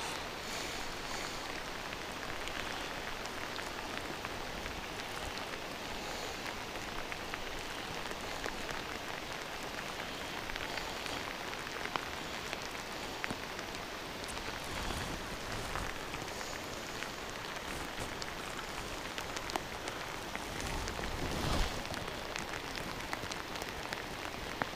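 Steady rain falling on lake water around a kayak, an even hiss with scattered sharper ticks of individual drops.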